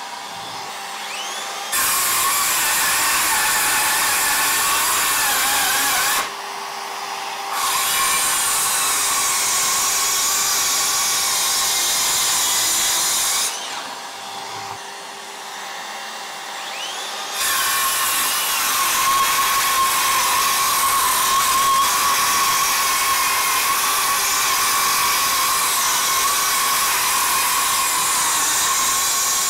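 Makita XSH04 18V brushless sub-compact circular saw cutting through stacked plywood, with a dust-extractor vacuum running on its hose. Twice the cutting drops away for a few seconds, leaving the vacuum's steady hum. Then the saw spins up with a rising whine about 17 seconds in and cuts steadily to the end.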